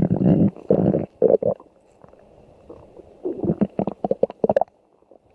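Cartoon stomach-growling sound effect: a loud low rumble that cuts off about half a second in, two short gurgles, then after a pause a quick run of short gurgling pulses that stops near the end.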